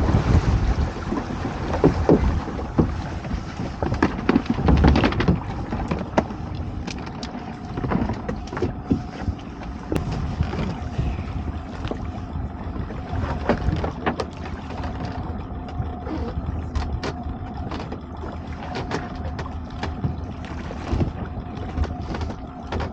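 Small boat at sea: wind on the microphone and water sloshing against the hull, loudest in the first few seconds, with scattered knocks and clatters on board. From about seven seconds in a faint steady motor hum runs underneath.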